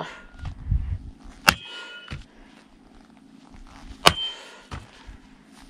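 Two hard over-strikes of a Cold Steel pole axe's shaft against a metal post, about two and a half seconds apart. Each is a sharp crack with a short metallic ring.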